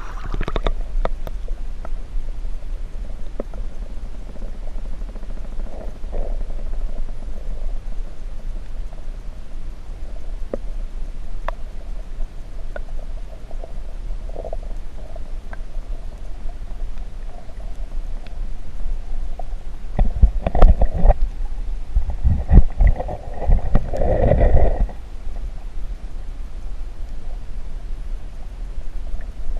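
Muffled underwater sound of a flowing creek picked up by a submerged camera: a steady low rumble with scattered faint ticks. About twenty seconds in there are several seconds of louder low rumbling and knocks.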